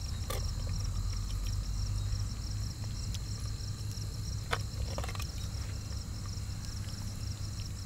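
Crickets chirping in a steady, pulsing high trill over a low steady hum, with a few light clicks as a steel ladle knocks against a clay pot while curry is served.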